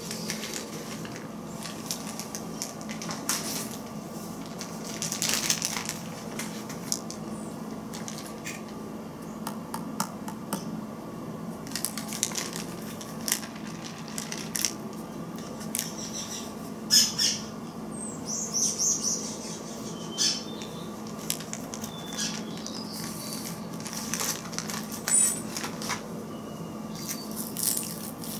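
Plastic zip-top bag crinkling and rustling, with clicks and knocks from a plastic powder bottle being opened and handled as feather powder is poured into the bag. The rustles come in many short, irregular spurts over a steady low hum.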